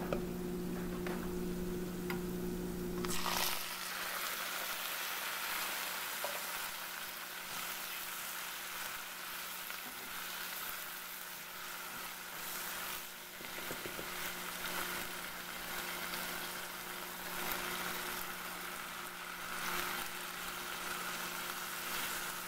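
Coditos (elbow noodles) frying in oil in a nonstick pot: a steady sizzle, with a spatula stirring through them once the tomato sauce is mixed in.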